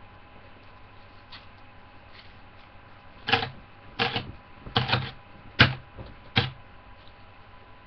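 A run of about six sharp knocks, some doubled, at roughly one every three-quarters of a second, starting about three seconds in and stopping near the end.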